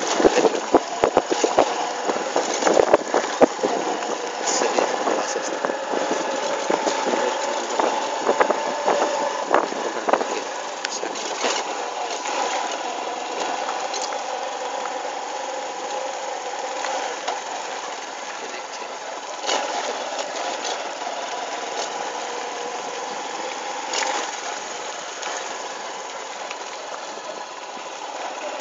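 Motorcycle engine running steadily while under way. Wind buffeting and knocks of handling on the phone's microphone are dense in the first ten seconds, then thin out to an occasional click.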